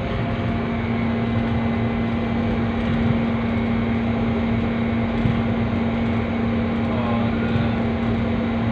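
GEU-40 diesel-electric locomotive running steadily, heard from inside its cab: an even mechanical drone with a constant low hum.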